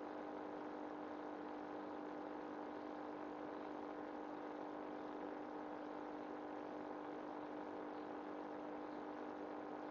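Steady hum with one strong low tone and fainter higher tones above it.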